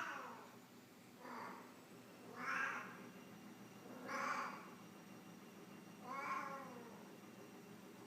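Cat in heat calling: four meowing calls about every one and a half to two seconds, each rising then falling in pitch, after the tail of a louder call at the start.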